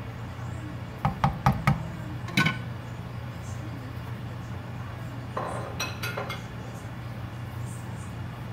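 Wooden spatula knocking against the rim of a nonstick pan: four quick knocks, then one more, over a steady low hum. A short clatter follows about five and a half seconds in.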